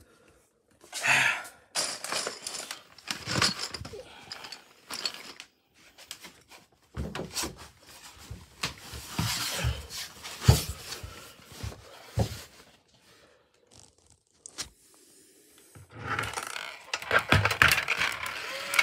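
Irregular clicks, knocks and scrapes of hard plastic toys being handled on a wooden floor. Near the end a hand turns a clear plastic maze ball.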